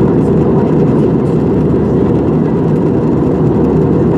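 Jet airliner cabin noise in flight: the steady, deep rushing sound of the engines and airflow heard from a window seat, even throughout.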